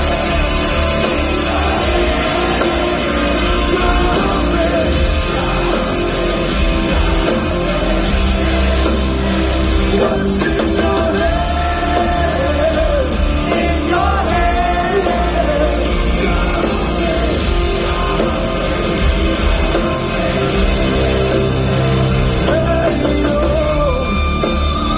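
Live heavy metal band playing loud, with electric guitars under a singer's melodic vocal, heard from within the audience.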